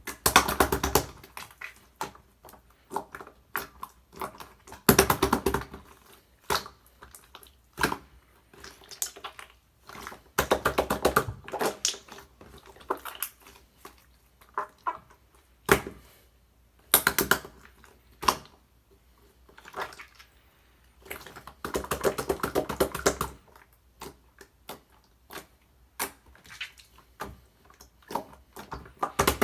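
Slime being squeezed and poked by hand: scattered sharp clicks and pops, with several short runs of dense crackling.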